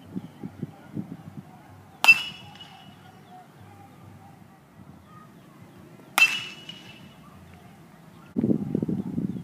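Metal baseball bat striking a ball twice, about four seconds apart, each hit a sharp ringing ping. A low muffled rumble comes in near the end.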